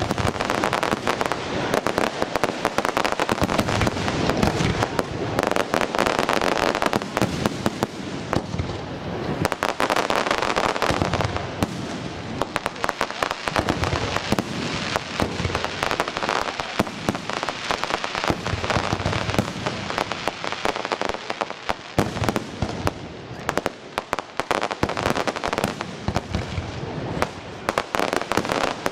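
Aerial fireworks display: a dense, continuous barrage of shell bursts and crackling.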